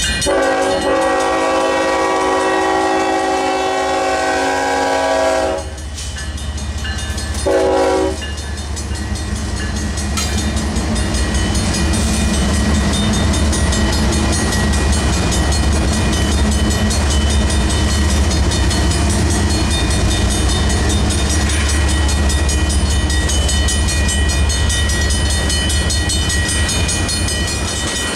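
Union Pacific diesel locomotive's horn sounding a long blast, then a short one about two seconds later, for a grade crossing. The lead locomotives then pass close by with a steady engine rumble and the noise of wheels on rail, while the crossing's warning bell rings steadily underneath.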